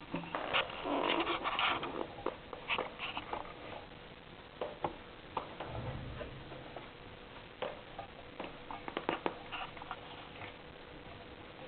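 Hamster chewing and crunching an insect: irregular crackling clicks, thickest in the first two seconds, with a dull low thump about six seconds in.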